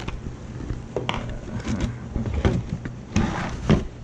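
Irregular knocks and clicks of a screwdriver working screws out of a plastic test-instrument case as the case is handled and turned over, with two louder knocks near the end.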